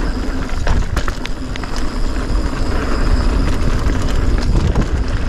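Polygon Siskiyou mountain bike rolling down a hard-packed dirt trail: a steady rumble of tyres on dirt and the bike rattling over the ground, with a few sharp clicks in the first two seconds.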